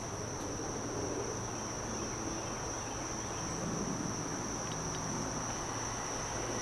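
Crickets chirring in one steady, unbroken high-pitched trill.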